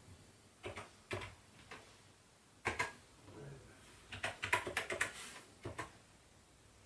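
Keystrokes on a computer keyboard: irregular sharp key clicks, a few single presses, then a quick run of keys about four seconds in, as a load command is typed.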